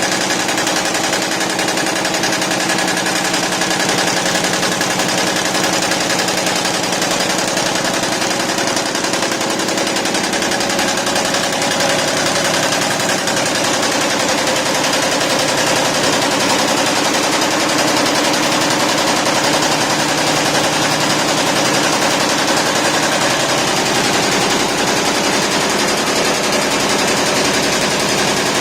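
YBD164 64-needle quilting embroidery machine running steadily, its needles stitching in a rapid, even mechanical clatter.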